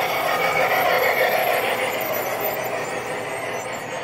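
O scale model train running on the layout, a steady rolling noise that eases off slightly toward the end.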